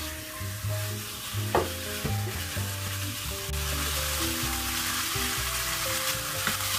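Gochujang-marinated pork sizzling in a hot wok over high heat as it is stirred with a wooden spatula, the sizzle building over the first few seconds. A knock of the spatula against the pan about a second and a half in.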